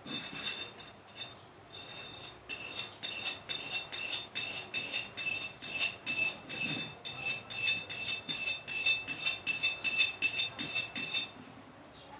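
Hand tool scraping rusty metal in rhythmic back-and-forth strokes, about three a second, with the metal piece giving a high ring on each stroke. The strokes stop near the end.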